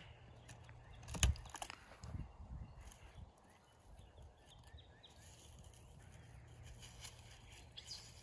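Faint rustling and scraping of a hand searching through dead leaves, soil and rotten wood at the base of a tree stump, with a sharp knock about a second in. A low steady hum runs underneath.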